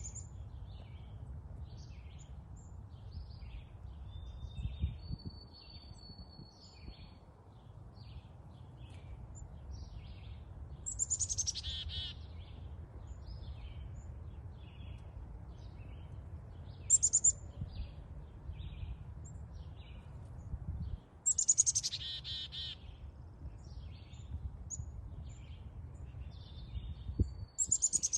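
Small songbirds chirping, with four louder song phrases that each sweep down in pitch, the loudest about two thirds of the way in. A steady low rumble runs underneath.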